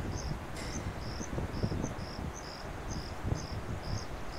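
An insect chirping in a steady rhythm, about two high chirps a second, over an irregular low rumble.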